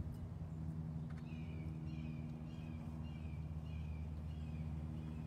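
A bird chirping, a run of short repeated notes about two a second, starting about a second in, over a steady low mechanical hum.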